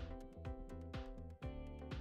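Background music with a steady beat and held tones, with a bright swell about once a second.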